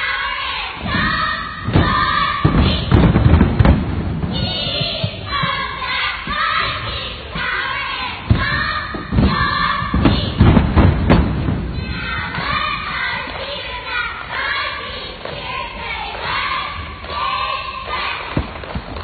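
A youth cheerleading squad chanting a cheer in unison, children's voices shouting short rhythmic lines. Heavy thumps come in two stretches, about two to four seconds in and again around eight to eleven seconds in.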